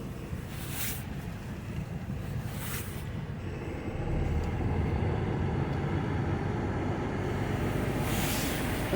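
Semi-truck running, a steady low rumble that gets louder about four seconds in.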